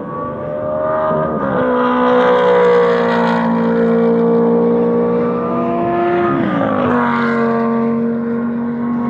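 Sports car engines running flat out down a runway: a 2007 Ferrari and a 2007 Lamborghini on high-speed passes. The loud, steady engine note drops sharply in pitch as a car goes by, about a second and a half in and again about six and a half seconds in.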